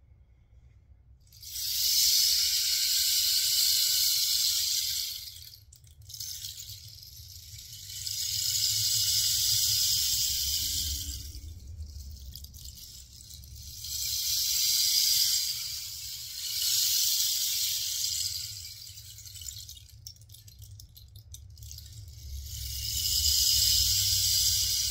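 Rain stick tipped over again and again, each turn pouring a cascade of pattering rattles that swells and fades over a few seconds, about five times.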